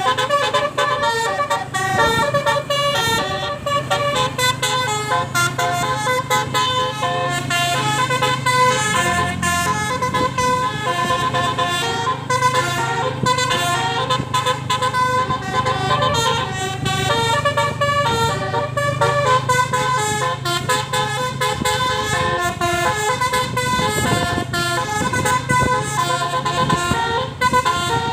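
Indonesian 'telolet' bus horn, a multi-tone musical air horn, playing a fast melody of stepping notes over and over. A low engine hum runs underneath and drops away about three quarters of the way through.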